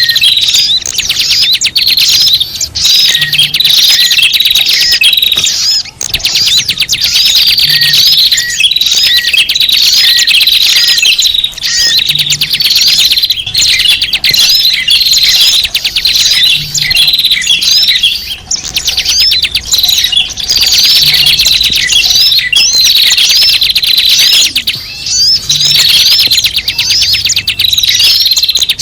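Bird-lure recording of many small birds chirping and twittering noisily in a dense, unbroken chorus of high, quick chirps and trills.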